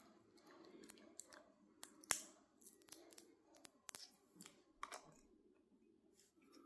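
Faint clicks and handling noise from a plastic TV remote control being handled, with a few sharp ticks, the loudest about two seconds in, over near-silent room tone.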